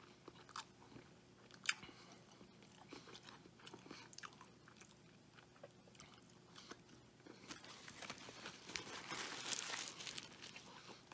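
A man biting into and chewing a Wendy's Triple Baconator bacon cheeseburger, faint, with scattered wet mouth clicks. The chewing gets louder and busier from about two-thirds of the way in.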